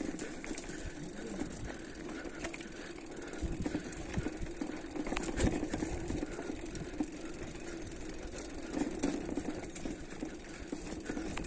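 Mountain bike riding down a dirt trail: steady rolling and rattling noise with scattered knocks, the loudest about halfway through.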